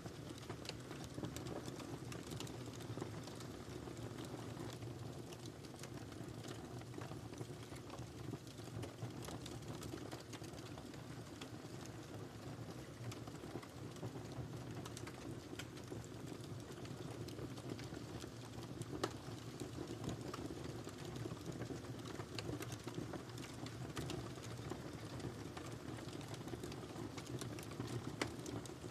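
Wood fire burning in a fireplace: a steady low rumble of flames with scattered sharp crackles and pops, a couple of them louder than the rest.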